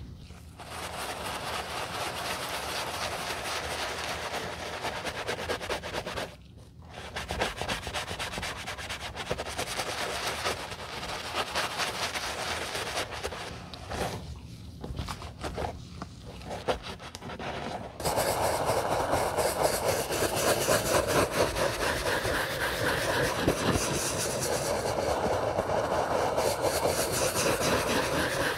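A terry-cloth towel rubbing over the smooth leather of a white leather sneaker in repeated strokes, with a couple of short pauses. About two-thirds of the way through it changes abruptly to a louder, denser scrubbing: a wooden-handled bristle brush working foamy lather over the wet leather.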